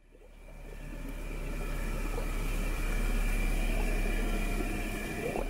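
Low rumbling ambient drone with a few faint steady high tones, fading in over the first two seconds and then holding steady.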